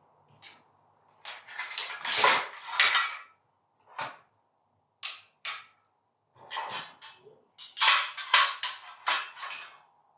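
Heavy metal door closers knocking and clanking against each other as they are handled and put away: a series of sharp, irregular clacks with short pauses between them.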